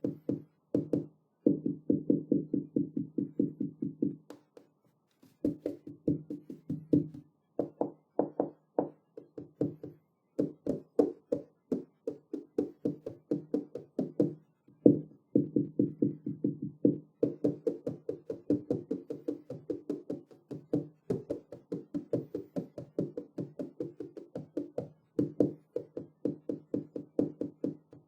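Tapping on a glass window pane in quick runs of taps, several a second, each with a short low ring, broken by brief pauses.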